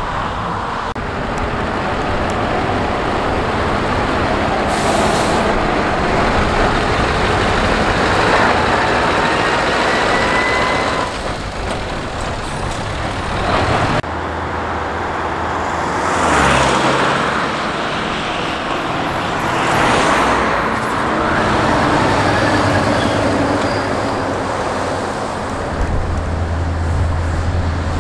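Scania V8 trucks driving past one after another, engines pulling steadily over tyre and road noise. There is a rising whine in the first half, two louder swells as trucks pass close in the second half, and a deep steady engine drone near the end.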